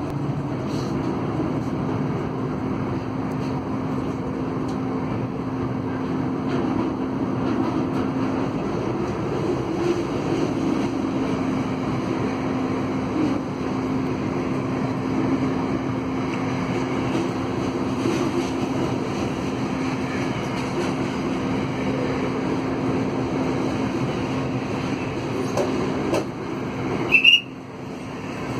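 Steady rumble of trains on the rails, heard from inside a passenger carriage, with a steady hum, as a long standard-gauge container freight train passes on the next track. Near the end there is a short, loud, high-pitched sound, then the noise briefly drops away.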